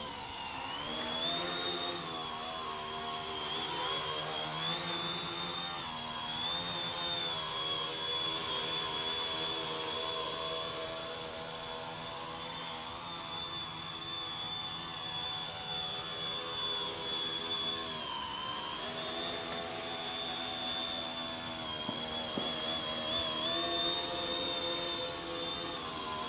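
HobbyKing X900 tricopter in flight: its three electric motors and propellers whine steadily. The sound is a high tone over a stack of lower ones, and the whole stack dips and recovers in pitch several times as the motor speed changes.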